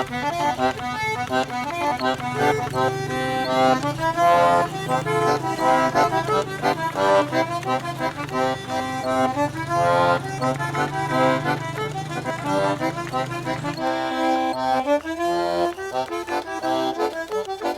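Accordion (sanfona) playing a lively tune with quick changing notes, over a steady low bass drone that drops out about fourteen seconds in.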